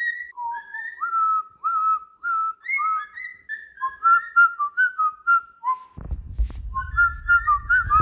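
Male cockatiel whistling a long run of short, clear notes, many sliding up or down in pitch: its courtship whistling. From about six seconds in, a low rumble of camera handling runs underneath.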